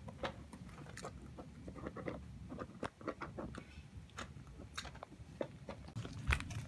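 A puppy chewing and tugging at gift wrapping paper: irregular crinkles and small clicks.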